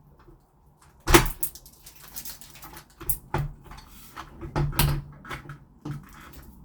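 Knocks and clicks of smart-lock hardware being handled and pushed into place on a door. The loudest knock comes about a second in, with a few more scattered after it.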